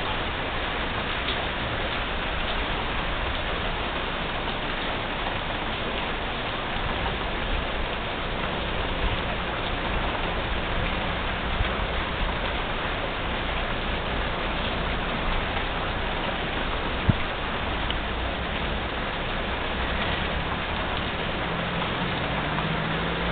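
Steady rain, an even hiss, with a single sharp tap about seventeen seconds in.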